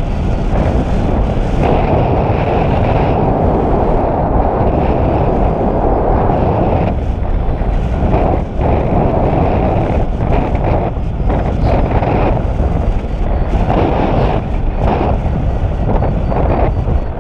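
Loud, constant wind buffeting on the camera microphone from the airflow of a paraglider in flight, swelling and easing in uneven gusts.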